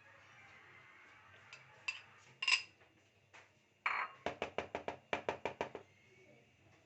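Kitchen utensil knocking against a mixing bowl: a couple of separate clinks, then a quick run of about a dozen sharp taps at roughly six a second.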